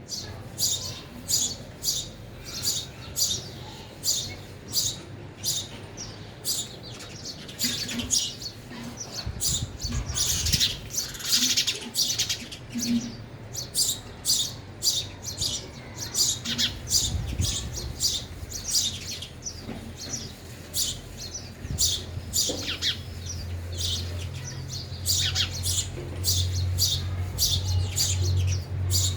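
Sparrows chirping over and over, a quick run of short, high chirps about two a second.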